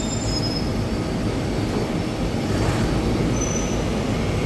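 Steady din of factory machinery running, with a couple of brief high squeaks near the start and about three and a half seconds in.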